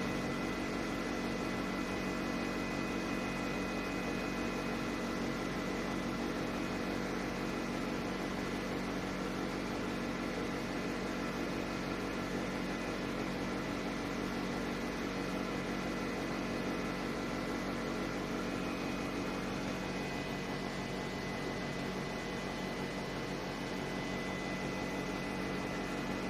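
Wimanair 9000 BTU portable air conditioner running steadily: even fan-and-airflow noise with a low hum and a faint high whine.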